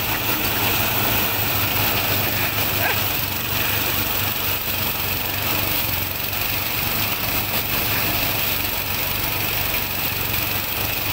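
Engine-driven rice thresher running steadily, its small engine humming evenly while bundles of rice stalks are held into the spinning threshing drum.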